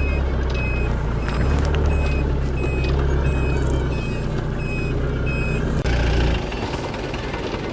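Reversing alarm beeping about every two-thirds of a second over the steady engine of a BMC Levend XL motorhome as it backs up. About six seconds in the beeping stops and the engine sound drops.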